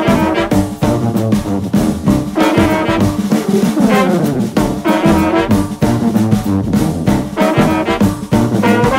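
Background music: a brass-led, jazzy tune with a steady beat.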